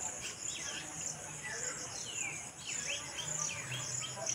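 Steady chorus of crickets or similar insects, with birds calling in short notes that slide downward, several a second.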